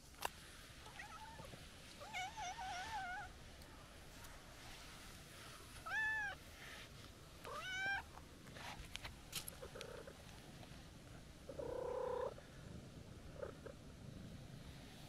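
Calico cat meowing four times: a warbling, trilled call about two seconds in, two rising-and-falling meows around six and eight seconds, and a shorter, lower call near twelve seconds.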